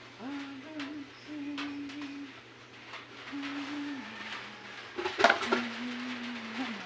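A person humming a slow tune in held phrases of a second or two. About five seconds in, a sharp clatter of dishes cuts across the humming.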